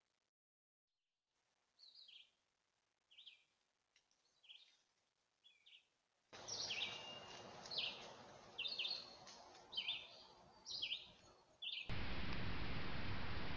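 A bird calls over and over with short, high, hooked notes about once a second, over the hiss of a trail camera's microphone. Near the end a louder steady hiss takes over.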